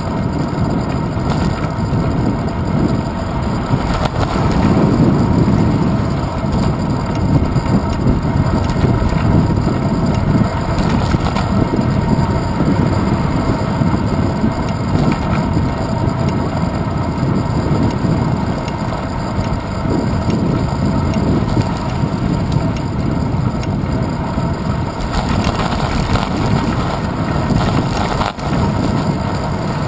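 Steady low rumble of wind buffeting and road vibration picked up by a handlebar-mounted GoPro Hero 2 on a moving bicycle rolling over asphalt.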